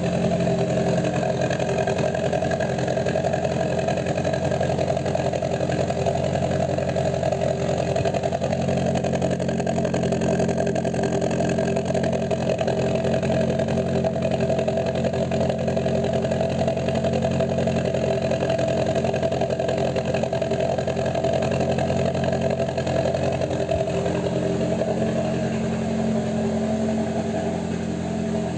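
Toyota Kijang LGX idling steadily through its exhaust, not revved, with a deep, wet, gurgling growl ("ngorok basah"). It gets a little quieter near the end.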